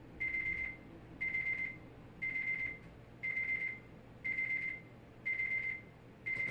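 Electronic alert beeper sounding a single high-pitched beep about half a second long, repeating once a second: the alarm signal that comes before a weather alert is read.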